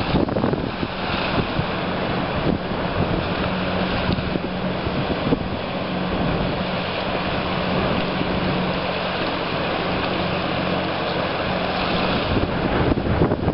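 Wind buffeting the microphone with a faint steady engine drone from a motor tender boat underway, which stops near the end.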